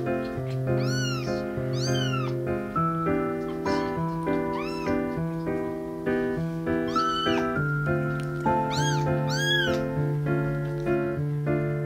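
A very young kitten mewing: about six short, high-pitched cries that rise and fall, in two pairs near the start and near the end with single ones between, over background music.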